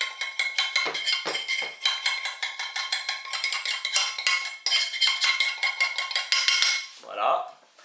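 Metal utensil scraping and tapping rapidly against a frying pan, knocking fried lardons out into a bowl: a quick run of metallic clicks with a ringing tone that stops about seven seconds in.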